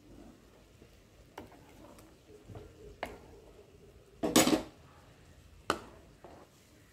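Steel ladle clinking and scraping against a non-stick pan while whisked curd is poured into a thick curry and stirred in: a few light clinks, with one louder clatter about four seconds in.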